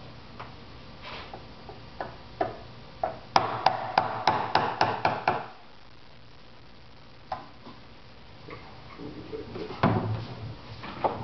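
Small hammer tapping on a fiberglass mold to break the molded nacelle free: a few scattered light knocks, then a quick run of about ten taps a few seconds in, then more scattered knocks near the end.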